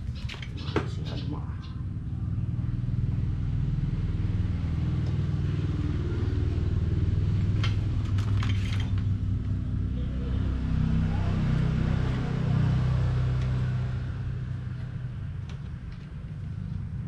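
A motor vehicle's engine rumbling low and steady, swelling after a couple of seconds and easing again near the end. A few sharp metallic clicks come near the start and again about eight seconds in.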